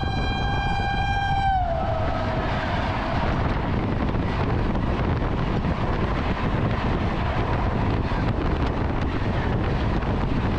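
WAP-7 electric locomotive's horn, one held note that drops in pitch about a second and a half in as the locomotive passes. Then comes the steady rush and rattle of an express train speeding past, heard from aboard another moving train.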